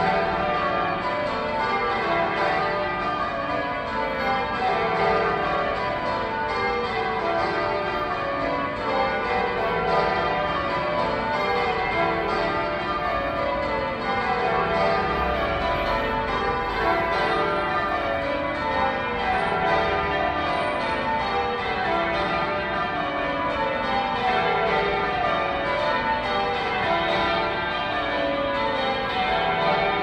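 Church bells of a cathedral tower being change-rung: a continuous run of bell strokes, each row stepping down from the highest bell to the lowest.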